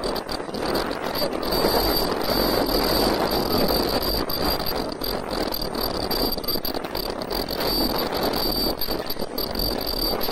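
Automatic 3D face mask making machine, with servo drives and ultrasonic welding units, running at speed: a steady mechanical clatter with a constant high-pitched whine over it.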